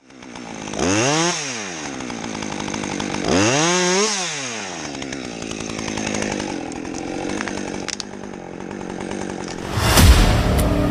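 Chainsaw engine revved up and back down twice, then running more steadily at a lower speed. A loud low thud comes near the end.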